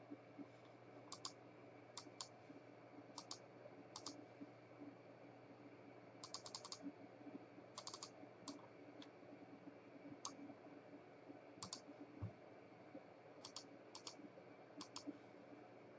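Scattered sharp clicks of a computer mouse, many in quick pairs, a few bunched together about six to nine seconds in, over a faint steady hum. A soft low thump about twelve seconds in.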